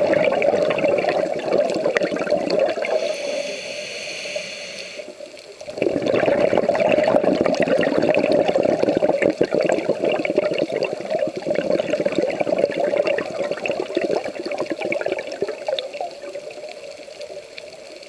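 A scuba diver's regulator breathing, heard through an underwater camera. A long crackling rush of exhaled bubbles gives way about three seconds in to a quieter hissing inhale. The bubbles then start again strongly and fade toward the end.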